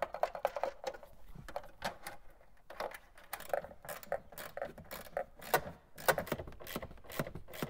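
Scattered light clicks, taps and rattles of hands working plastic parts as a taillight housing is pressed into place on a Toyota 4Runner and the trim around it is handled.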